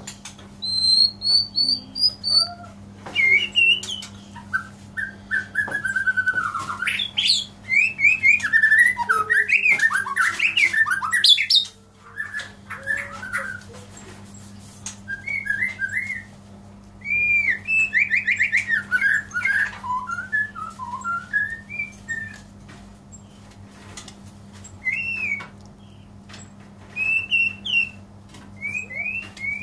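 White-rumped shama singing: a long run of varied, rich whistled phrases gliding up and down, densest and loudest in the first dozen seconds, then shorter phrases separated by brief pauses.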